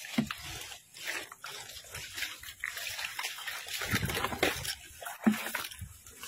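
Footsteps squelching and splashing through mud and shallow water, in an irregular run of wet steps and sloshes.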